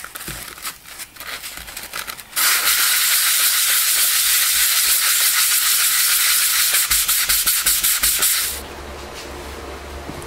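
Sandpaper wrapped around a length of angle iron rubbed back and forth across the flat metal face of a hydraulic pump section, sanding it flat and clean: a loud, steady gritty hiss that starts about two seconds in and stops abruptly near the end. Before it, lighter rustling and clicks as the paper and angle are handled and set on the part.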